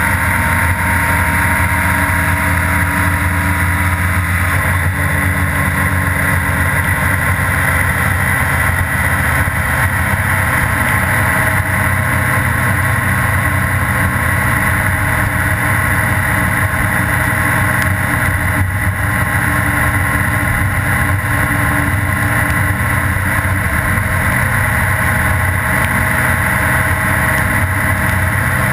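Honda Gold Wing GL1800's flat-six engine running steadily at cruising speed, under constant wind rush and tyre hiss on a wet road.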